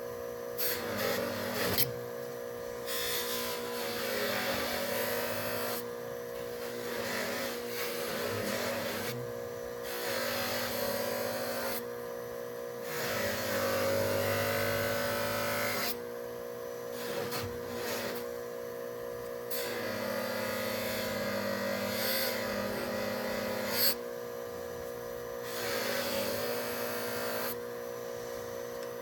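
A small electric power tool running steadily, with rasping grinding or polishing passes of a few seconds each as work is pressed against it, separated by short lighter gaps.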